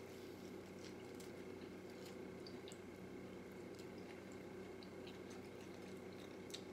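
Faint chewing and small wet mouth clicks of a man eating fried chicken wings, over a steady low hum.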